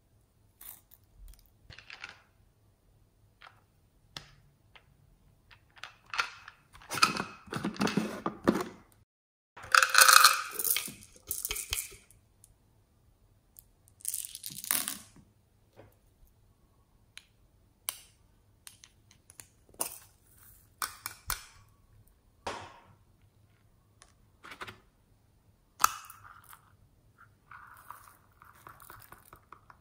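Plastic butterfly sequins and pearl beads being handled and sprinkled onto a tub of fluffy slime: irregular light rustling, crinkling and small pattering, loudest in a run of bursts about seven to twelve seconds in.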